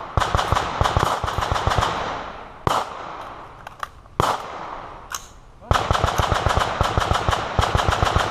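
Gunfire from several shooters with AR-style carbines and pistols: a dense run of rapid overlapping shots, three single shots spaced about a second apart, then rapid firing again from just under six seconds in.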